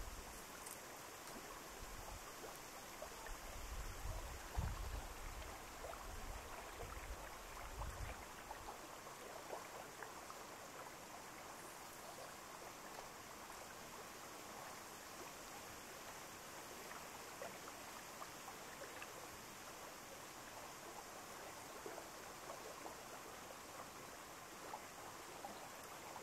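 Faint, steady rush of running water, with low wind buffeting on the microphone during the first eight seconds or so.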